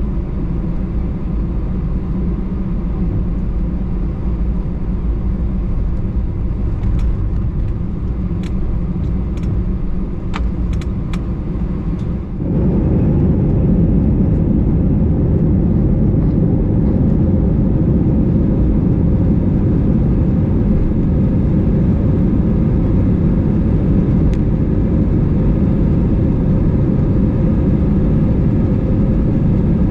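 Airbus A320 cabin noise at takeoff: a steady engine and airframe rumble that steps up sharply about twelve seconds in as the engines spool up to takeoff thrust, then holds loud and steady through the takeoff roll. A few light clicks and rattles come before the step.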